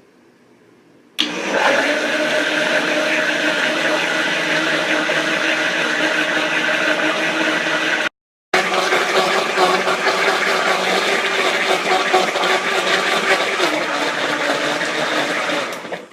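Electric mixer motor running steadily, whipping Dream Whip powder with cream. It starts about a second in, cuts out briefly near the middle, and runs on to the end.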